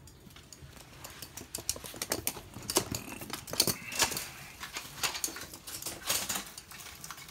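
A toy poodle's claws clicking on a hard laminate floor as it runs, a rapid, irregular patter of clicks that is busiest in the middle.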